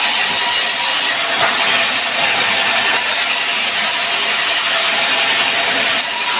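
A woodworking machine runs steadily, cutting sengon wood with a loud, even hiss and a faint hum.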